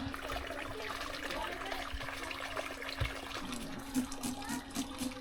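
Water trickling and splashing, with faint voices in the background and a few small clicks near the end.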